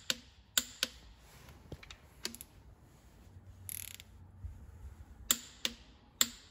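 Click-type torque wrench tightening connecting-rod cap bolts to 75 Nm: a series of sharp metallic clicks, several in close pairs, as the wrench breaks over at the set torque and its ratchet is swung back between pulls.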